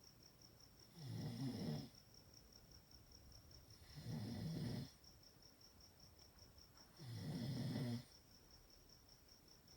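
Chihuahua snoring in its sleep: three snores about three seconds apart, each just under a second long.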